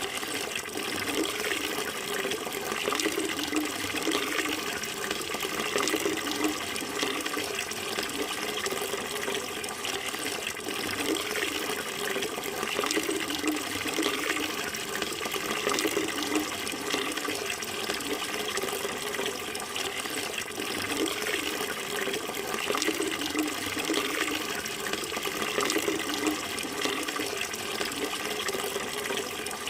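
Running water flowing steadily: a continuous rush with a fuller, churning low layer that swells and eases every few seconds.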